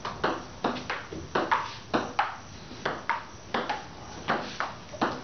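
Table tennis rally: a ping-pong ball clicking back and forth, bouncing on the table and struck by the paddles. The clicks come in quick pairs, one pair roughly every three-quarters of a second.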